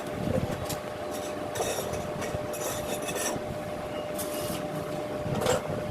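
Metal tools and parts being handled on a motorcycle: several short scrapes and clinks and a knock near the end, over a steady hum.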